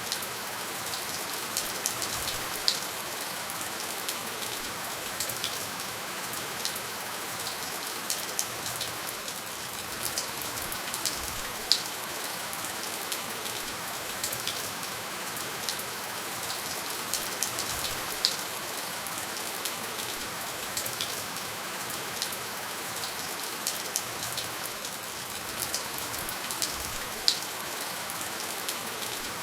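Steady rainfall with no thunder: an even hiss of rain with scattered sharper drop taps, a few standing out louder.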